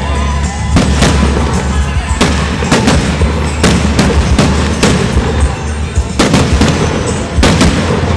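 Fireworks display: aerial shells bursting in a rapid series of sharp bangs, about fifteen, some coming in quick pairs, over a steady low rumble.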